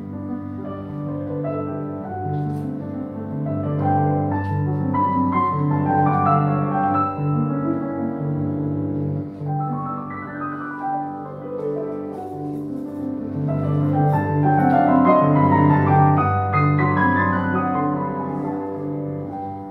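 Steinway grand piano played solo: a classical piece with sustained bass notes under quicker runs in the treble, swelling louder twice.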